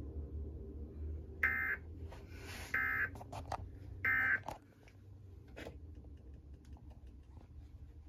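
Emergency Alert System end-of-message data tones: three short, shrill digital bursts about 1.3 s apart, played through a TV speaker over a low hum. The burst marks the close of the EAS test message.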